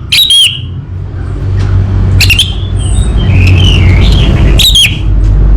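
Orange-headed thrush singing: three sharp, harsh downward-sweeping notes about two seconds apart, with warbling phrases between them. A loud, steady low rumble runs underneath.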